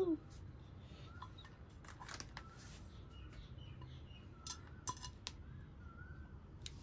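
A few light taps and clicks of pieces of a chocolate-coated cake bar and fingertips against a plate, at about two seconds in and again around the five-second mark, over a quiet background.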